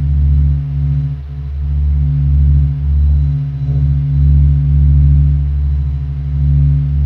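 Sonification of the Sun's acoustic oscillations, SOHO observatory data shifted up into hearing range. It is a low, vibrating, pulsating hum of several steady low tones that swell and ease about once a second. The oscillations are pressure waves from turbulence in the Sun's convection zone, resonating so that the whole star vibrates like a bell.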